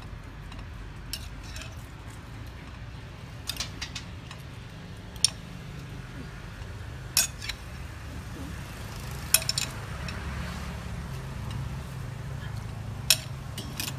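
Metal spoons clinking against a ceramic bowl and plates as soup is served, in irregular sharp clinks every second or so, over a steady low background rumble.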